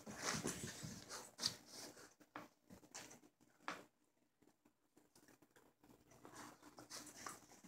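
Faint scuffling and patter of a Dalmatian puppy wriggling and rolling on a carpet rug, with short clicks and rustles. The scuffling stops for a couple of seconds about halfway through, then picks up again softly.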